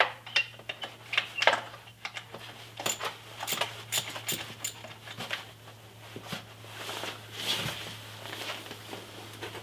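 Irregular clicks, taps and light knocks of parts being handled on a motorcycle, over a steady low hum.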